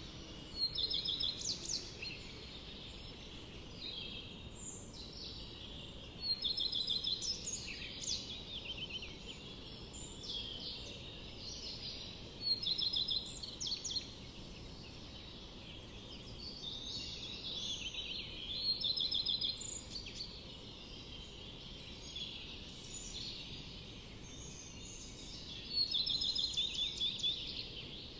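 Songbirds singing: short, rapidly trilled phrases that recur every few seconds, the loudest near the start, at about six, twelve, eighteen and twenty-six seconds in, over a steady low background hiss.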